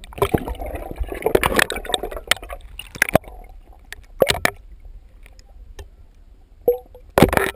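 Water sloshing and gurgling around a GoPro camera moved underwater, with scattered sharp knocks against its housing and a louder rush of water about seven seconds in.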